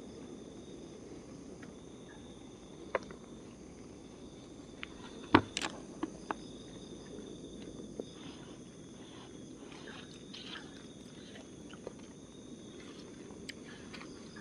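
Night insects keep up a steady high trilling chorus over the low, even hiss of a portable gas stove burner. Several short clicks and knocks of a utensil against a small camping pan break in, the loudest about five seconds in.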